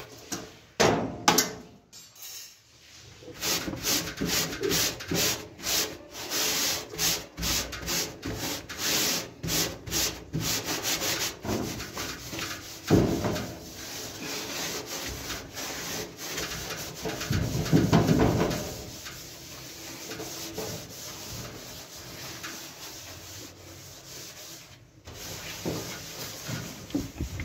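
Steel wool (Bombril) scrubbing the foam-coated metal floor of an oven, with quick back-and-forth rubbing strokes, about two to three a second, then steadier rubbing with a couple of louder passes.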